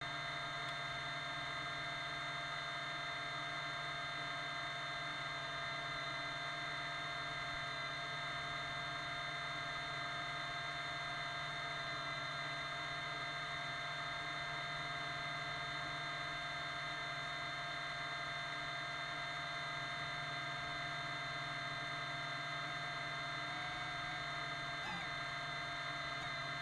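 Steady electric hum and whine with several fixed tones, from a 5-inch FPV quadcopter sitting powered up before takeoff, with a slight change near the end.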